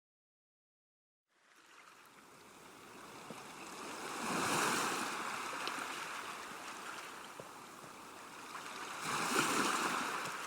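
River water washing against the bank. It fades in after a little over a second of silence and rises in two swells about five seconds apart.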